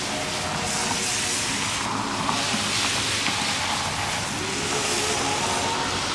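Cars passing close by on a wet road, their tyres hissing through the surface water over a low engine hum, the hiss swelling as each car goes by.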